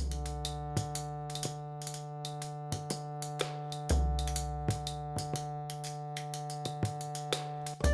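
Background music: sustained chords over a deep bass that swells at the start, again about four seconds in and near the end, with a running pattern of sharp percussive ticks.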